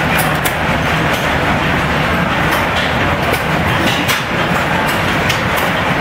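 Several antique flywheel gas engines running at once: a dense, steady mechanical clatter with irregular sharp exhaust pops standing out every second or so.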